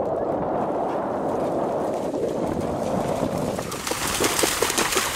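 A dog wading through shallow water, steady sloshing that turns about four seconds in into a quick run of splashes as it starts running.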